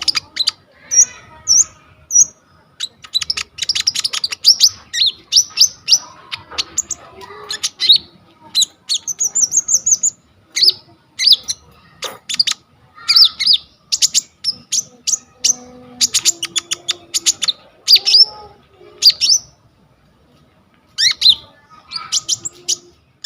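A konin songbird singing a fast, varied song of short, sharp, high chirps and trills, strung into a stream of different phrases, with a short pause near the end.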